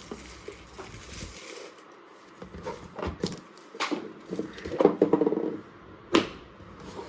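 Hands handling a product box and its packaging: scattered light clicks, knocks and rustles, with one sharp click about six seconds in.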